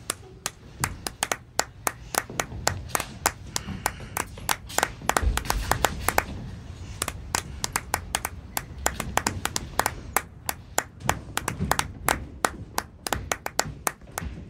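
Small audience clapping during a curtain call, the separate claps distinct and uneven rather than a dense roar of applause.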